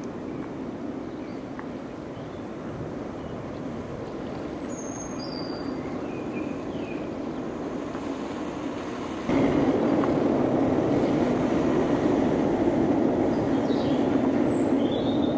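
Distant steam-hauled train running over a steel rail bridge: a steady rumble that steps up suddenly louder about nine seconds in.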